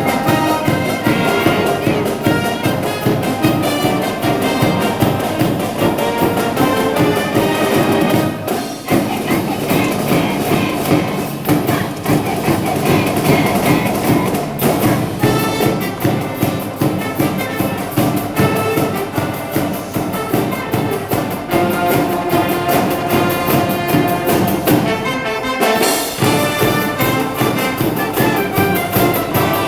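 High school brass band playing a baseball cheering medley, brass over a steady drum beat, with brief lulls about nine seconds in and again near the end.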